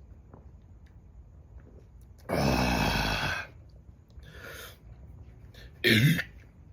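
A person belching after chugging a bottle of beer: one long, loud burp about two seconds in, a softer one about a second later, and a short loud burp falling in pitch near the end.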